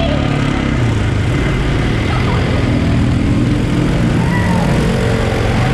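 Quad bike (ATV) engine running steadily at an even pitch while riding through mud.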